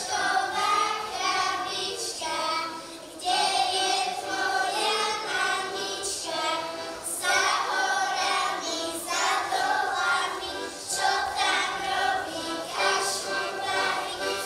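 A group of young children singing a folk song together in chorus, in short repeated sung phrases.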